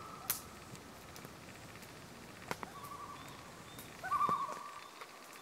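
Common loons giving wavering tremolo calls across the lake: one trails off just after the start, a weaker one comes in the middle and a louder one about four seconds in. A few sharp clicks sound between them.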